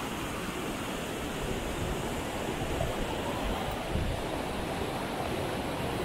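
Waterfall rushing steadily, a constant full roar of falling water.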